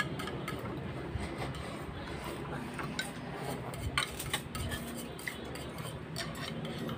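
Eating ramen noodle soup: chopsticks clicking and scraping against bowls, with noodle slurping, and a few sharper clinks about three to four seconds in.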